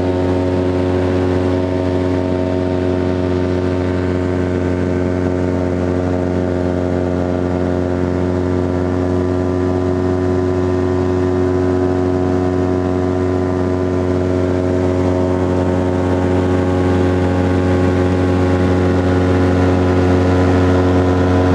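Titan Tornado light aircraft's engine and propeller running steadily in cruise flight, heard from inside the cockpit. The pitch holds even throughout, growing slightly louder near the end.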